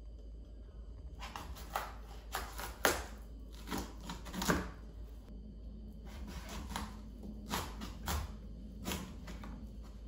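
A chef's knife working through the hard rind of a raw spaghetti squash on a plastic cutting board: a run of irregular crunches and knocks, the loudest about three and four and a half seconds in.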